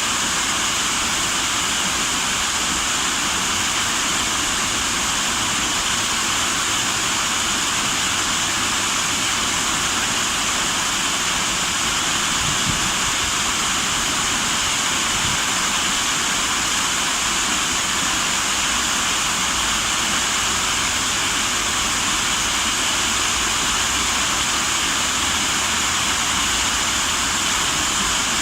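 Running water rushing steadily, an even hiss with no change in level.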